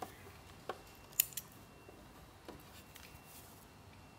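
Small scissors snipping off loose ends at the sewing machine: about five short, sharp snips, the loudest just over a second in.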